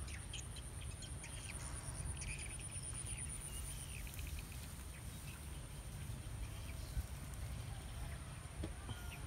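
Rural field ambience: a steady high insect trill that softens about four seconds in, scattered bird chirps, and wind rumbling on the microphone, with a single soft thump about seven seconds in.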